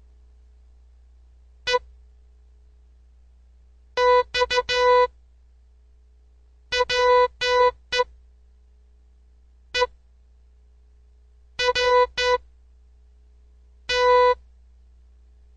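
Morse code sent as a buzzy electronic beep tone, keyed in short dots and longer dashes. About six letter groups follow one another with pauses between them: practice words to be decoded, over a faint steady hum.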